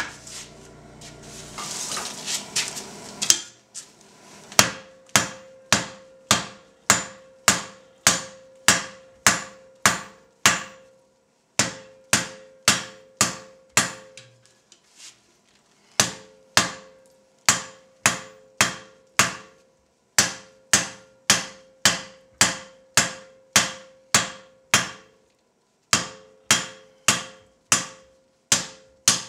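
Blacksmith's hand hammer, a 3-lb hammer, striking red-hot steel on an anvil at about two blows a second, each blow ringing briefly, with short pauses between runs. He is drawing the bar down to a spike and dressing its edges where it mushrooms out. The first few seconds hold a noisy rustle before the blows begin.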